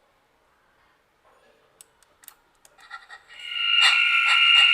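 Faint clicks, then about three seconds in a loud buzzing, alarm-like tone starts, pulsing about four times a second. It is a sound effect being played back through a chamber reverb.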